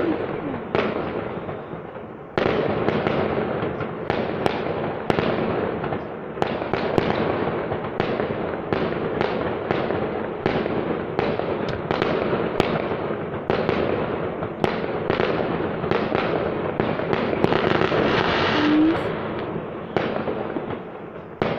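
Aerial fireworks going off in a rapid barrage, about two bangs a second, each trailing off in an echo.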